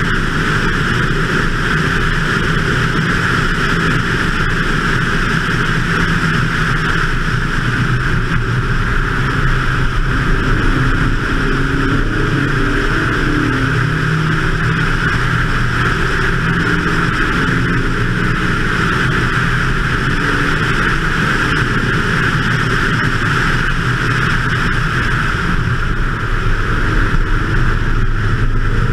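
BMW 2002's four-cylinder engine pulling steadily at track speed, under a loud, even rush of wind over the car.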